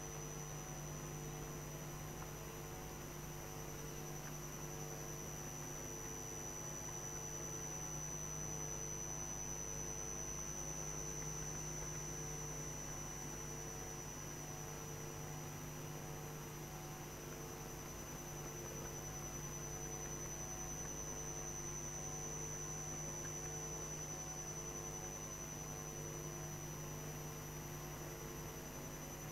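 Steady electrical hum with a thin high whine, and a faint tone pulsing evenly a little more than once a second.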